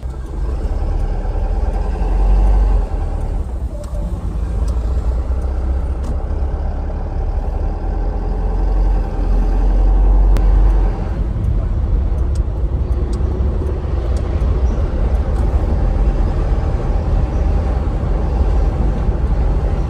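Engine and road rumble inside the cab of a moving cab-over truck: a steady low drone that swells a little about two seconds in and again around nine to eleven seconds.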